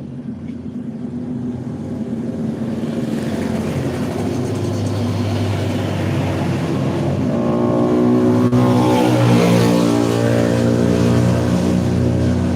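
A large bus's engine pulling past, growing louder over the first eight seconds or so. From about seven seconds in, a stack of steady pitched tones joins it.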